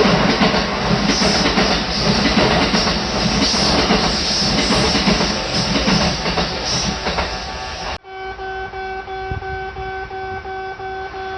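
A train passing over a level crossing, its wheels clattering over the rails. About eight seconds in, it cuts abruptly to a Japanese level crossing's electronic warning bell ringing in fast, regular dings.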